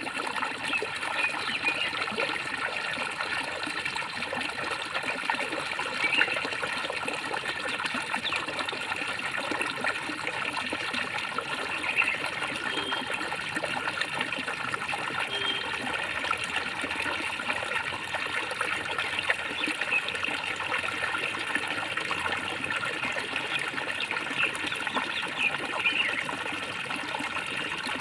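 Water gurgling and trickling steadily, with small bubbling blips and occasional slightly louder splashes.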